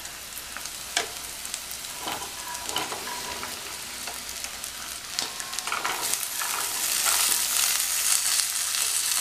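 Chopped vegetables (beans, carrot, green peas, potato) sliding off a plate into hot oil in a pressure cooker pan and sizzling, with a few knocks of the spatula against the plate and pan. The sizzle grows louder from about six seconds in as more vegetables go into the oil.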